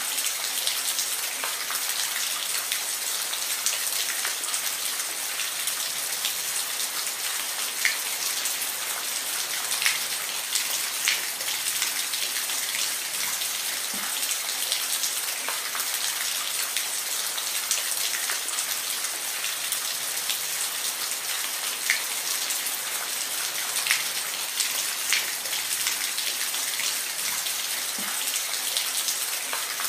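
Steady rain falling, an even hiss with scattered individual drops ticking sharply on a surface.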